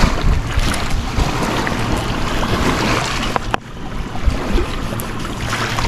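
Wind buffeting the microphone, a rumbling hiss, over small waves washing against the rock shore; it eases off briefly a little past halfway.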